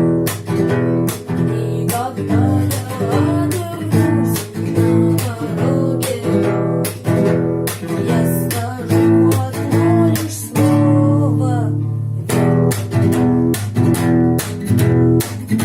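Guitar-based rock music with a steady beat of drum hits, the guitars playing chords and a wavering melody line.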